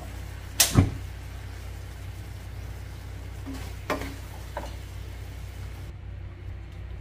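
A utensil knocking against a nonstick wok: a sharp double knock just under a second in, then a smaller knock about four seconds in and a faint one soon after, over a steady low hum.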